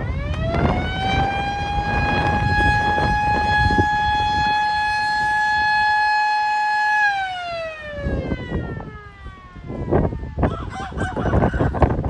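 MS-490 outdoor warning siren: it winds up to a steady tone, holds it for about six seconds, then winds down, and begins winding up again near the end. Wind rumbles on the microphone underneath.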